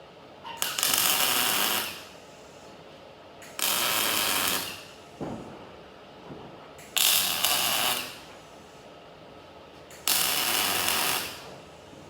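Electric arc welder tack welding steel: four bursts of crackling arc, each about a second long, with short pauses between, as the parts of a channel-section cradle are tacked together.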